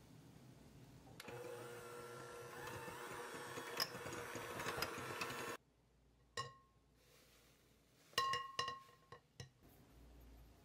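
Electric hand mixer running steadily for about four seconds, then cutting off abruptly. After it, a stainless-steel mesh sieve is tapped to sift flour: one ringing metal tap, then a quick run of several louder ringing taps.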